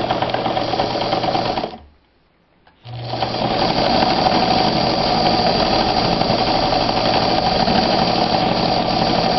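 Sewmor class 15 sewing machine, driven by its electric motor from the foot controller, stitching through denim. It stops about two seconds in, pauses for about a second, then starts again and runs steadily.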